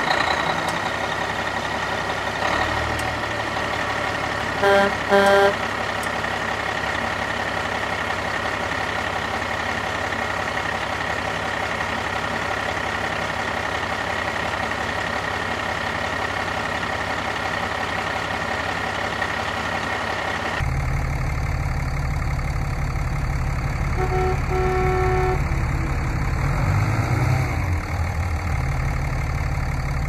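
Steady simulated diesel engine sound from RC toy construction vehicles, with two short horn toots about five seconds in and again near the end. About two-thirds through it switches suddenly to a heavier, lower engine rumble.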